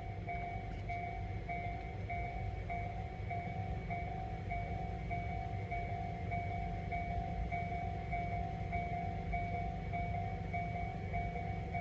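Japanese railway level-crossing warning bell ringing on and on, a repeated electronic clang about three times a second, over a steady low rumble.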